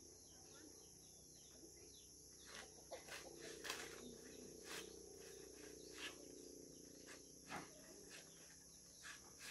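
Near silence outdoors: a steady high-pitched insect drone, with a few faint clicks or knocks and a faint low hum between about three and eight seconds in.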